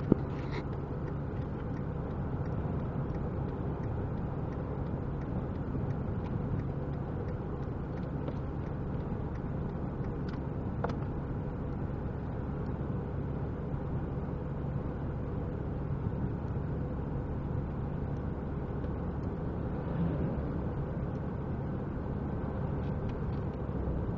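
Car engine idling, a steady low hum and rumble, with a sharp click at the very start.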